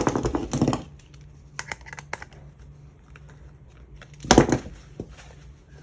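Small clicks and rattling as the screws of a hat-mounted camera mount kit are screwed in by hand, with a louder clatter at the start and again about four seconds in.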